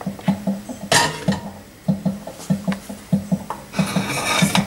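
Boiled green beans tipped from a colander into a stainless steel pan of hot olive oil and garlic and stirred with a wooden spoon: a brief sizzle about a second in and a longer sizzling rustle near the end. Background music with a steady beat plays throughout.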